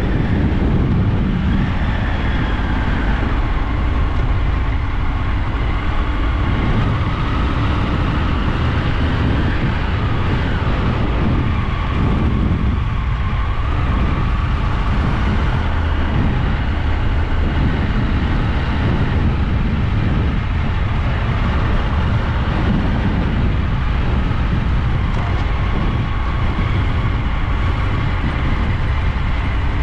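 Motorcycle engine running steadily, a constant low rumble with faint engine tones that drift a little in pitch.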